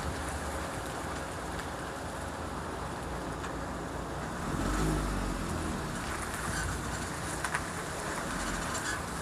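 Car on the move: a steady haze of road and tyre noise, with a short low rumble about five seconds in.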